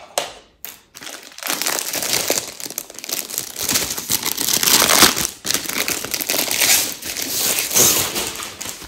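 Packaging crinkling and rustling continuously as it is handled and unwrapped, after a couple of light clicks at the start.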